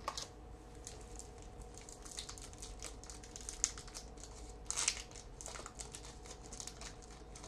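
Plastic wrapper of a 2007 Topps football card pack crinkling in short crackles as it is torn open and handled, with the loudest burst about five seconds in. A faint steady hum sits underneath.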